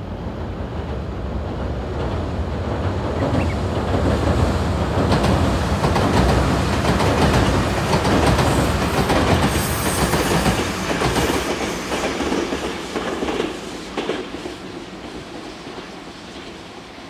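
Tobu Series 100 Spacia electric express train passing on the line, the sound of its wheels on the rails swelling as it nears, then fading away as it recedes.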